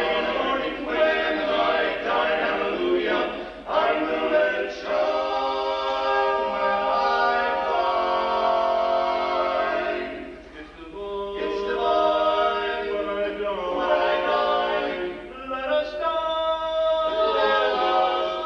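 Male barbershop quartet singing a cappella in close four-part harmony, holding long chords with a few short breaths between phrases.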